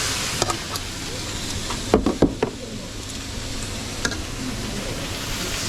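Food sizzling in a hot pan, with a quick run of sharp clanks about two seconds in as a utensil strikes the pan, and single knocks before and after.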